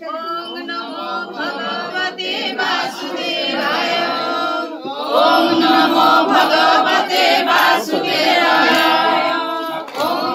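A group of voices singing a devotional chant together, getting louder about halfway through.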